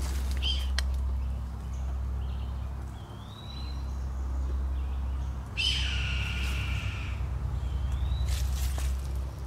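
A bird of prey screaming: one long, harsh call about five and a half seconds in, with shorter rising-then-falling calls before and after it.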